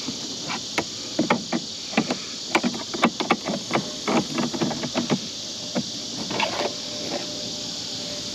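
Irregular clicks, taps and knocks of plastic parts of a truck's A/C heater box being handled and opened up.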